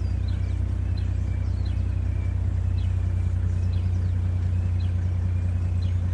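Vehicle engine idling with a steady low hum, while a bird chirps over and over, short high calls about once a second.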